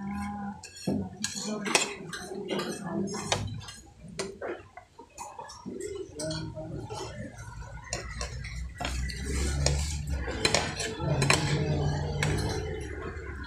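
Steel knife and fork clinking and scraping against a metal sizzling plate as meat is cut, a run of sharp clinks; later a spoon scrapes on a ceramic plate.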